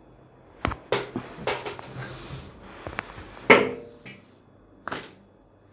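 Several short, sharp clicks and knocks from hands-on chiropractic manipulation, the loudest about three and a half seconds in.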